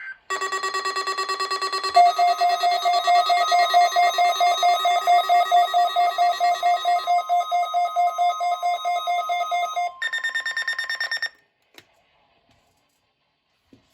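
NOAA weather radio alert alarm set off by the weekly test's digital code and warning alarm: rapid electronic beeping, about four pulses a second, that steps up in pitch twice and stops about eleven seconds in.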